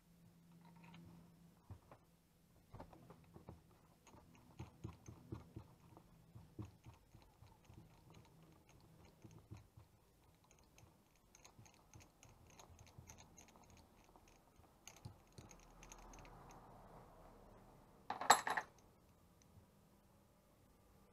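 A spark plug is unscrewed from a scooter engine's cylinder head with a plug wrench, making small scattered metallic clicks, scrapes and ticks of the tool. One much louder short clatter comes about eighteen seconds in.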